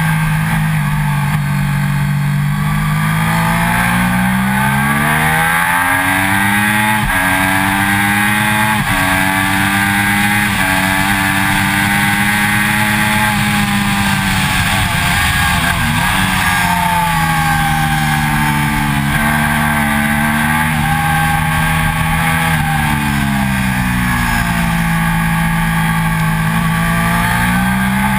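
2006 Triumph Daytona 675's three-cylinder engine under hard acceleration on track: the revs climb, drop suddenly twice at upshifts in the first ten seconds, fall away about halfway through as it slows, then climb and fall twice more. A steady rush of wind runs underneath.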